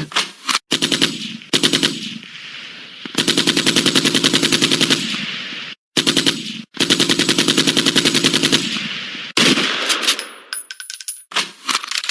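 Machine-gun fire sound effects played one after another: short bursts and two long bursts of rapid automatic fire at about ten shots a second, each cut off sharply. A brief run of light metallic clicks comes a little after ten seconds in.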